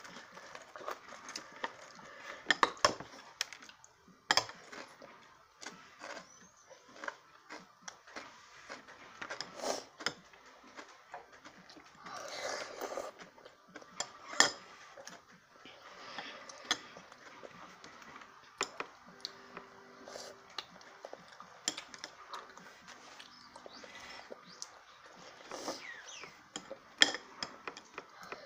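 Eating sounds: a metal spoon and plastic training chopsticks click and scrape against a bowl in scattered, irregular taps, with chewing in between.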